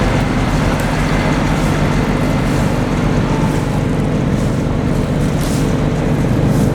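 An engine running steadily at a constant speed, with a low, even drone.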